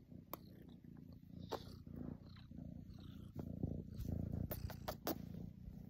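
Domestic cat purring up close in a steady low rumble, with scattered clicks and rustles from fur brushing against the microphone, most of them between about four and five seconds in.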